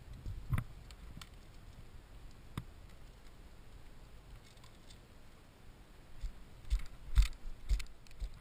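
Climbing hardware being handled during a trad climb: scattered metallic clicks and clinks of carabiners and wired nuts. Near the end comes a burst of louder clinks and knocks.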